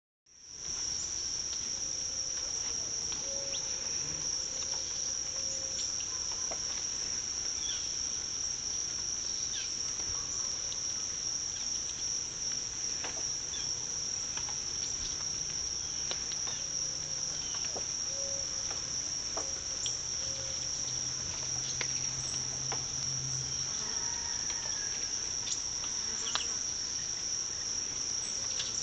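Insects such as crickets shrilling in a steady, unbroken high-pitched chorus, with scattered faint ticks.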